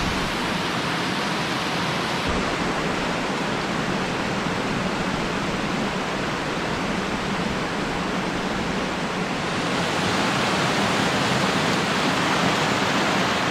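Steady rush of falling water from a waterfall, growing a little louder about ten seconds in.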